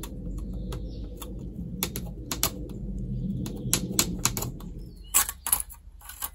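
Fine-toothed hand saw cutting a slit into the end of an arrow shaft: quick, uneven rasping strokes with scattered ticks. The rasping stops about five seconds in, and a few louder clicks follow.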